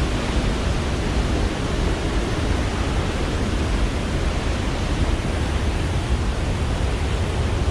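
Athirappilly Falls, a large waterfall, giving a steady, unbroken rush of falling water, heavy in the low end.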